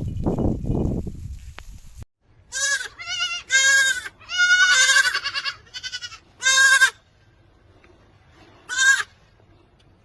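Goats bleating: a quick run of high, quavering bleats from about two and a half to seven seconds in, and one more near the end. Before them, about two seconds of low rumbling, thudding noise that stops abruptly.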